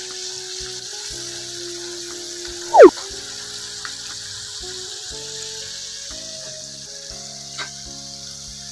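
Mandeli fish deep-frying in hot oil, a steady sizzle, under background music of long held tones. A short, loud sweeping sound effect comes about three seconds in.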